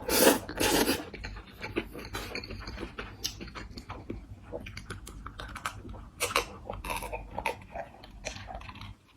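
Close-up chewing and crunching of food: many short crunches and wet clicks, the two loudest in the first second.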